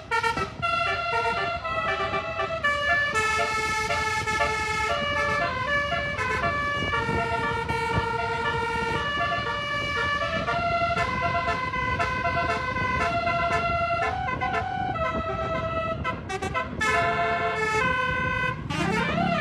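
Bus 'basuri' telolet musical horn playing a melody of held notes that step up and down, over a running engine. Near the end the tone sweeps up and down like a siren.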